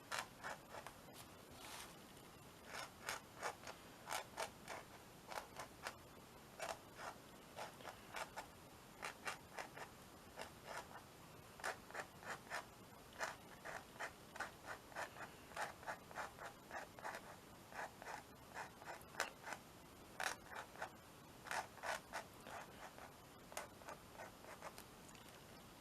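Paint marker tip scratching and tapping on a canvas in quick short strokes, coming in runs of several a second with brief pauses between.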